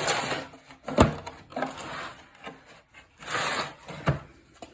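An impact socket set and its case being handled: rubbing and sliding noises in three short spells, with two sharp knocks, one about a second in and one near the end.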